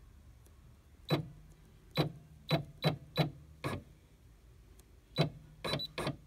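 Brother PE 780D embroidery machine shifting its hoop carriage in short steps as the arrow key is pressed: about ten sharp clicks, each with a brief hum, in two runs with a pause near the middle.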